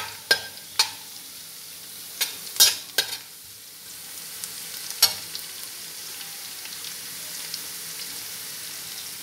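Chopped ginger, garlic and green chillies sizzling steadily in hot coconut oil in a pan. A metal spatula stirring them clicks and scrapes against the pan several times in the first five seconds.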